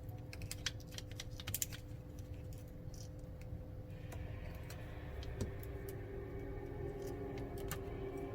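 Light, irregular clicking and tapping of small metal tools, such as tweezers and screwdrivers, on phone parts and screws during a smartphone screen repair, over a steady low hum.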